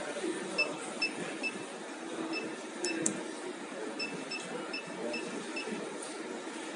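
Short electronic key beeps from a soldering robot's teach pendant, about a dozen at irregular spacing as the X, Y and Z jog keys are pressed to move the soldering head, with two sharp clicks about three seconds in over a low background hum.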